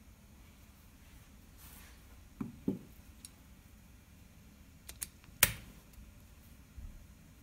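Quiet clicks and knocks of a detachable plywood drive arm being fitted onto a steel driving axle with a spring-loaded ball lock. Two soft knocks come about two and a half seconds in, then a few clicks, the loudest a single sharp click about five and a half seconds in.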